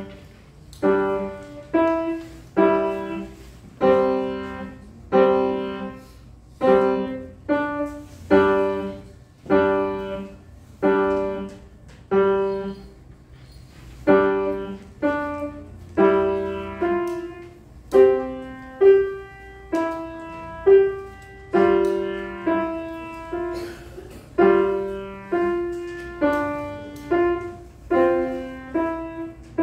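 Grand piano played in a slow, simple piece: chords struck about once a second, each ringing out and fading before the next.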